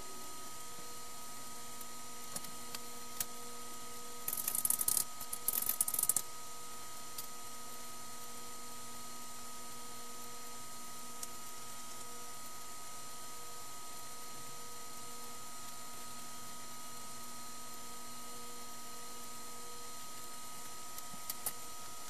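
Steady hum and hiss of a running desktop computer, a Compaq Evo D510 small form factor, with several fixed tones. A few single clicks come early, and a burst of rapid clicking lasts about two seconds from around four seconds in.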